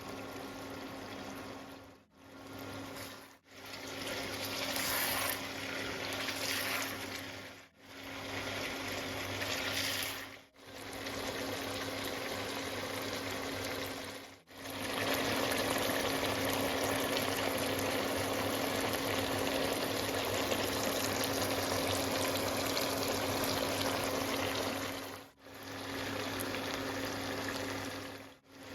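Mutton cooking in oil in a karahi, a steady bubbling sizzle. It is heard as several short clips separated by abrupt cuts, the longest and loudest in the second half.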